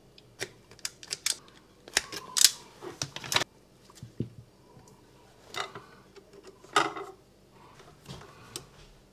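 Irregular clicks, taps and short scrapes of hand tools and plastic electrical fittings being handled, busiest around two to three seconds in.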